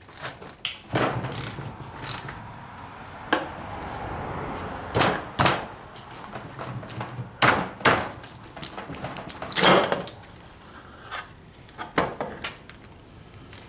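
Hand tools and metal parts knocking and clanking against an NP208 transfer case being taken apart: a run of sharp knocks, with a scraping stretch in the first few seconds and the loudest knocks about halfway through.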